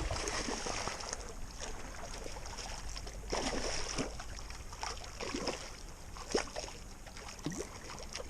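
Water splashing and sloshing in short, irregular bursts as a hooked rainbow trout thrashes at the surface close to shore while it is being brought in.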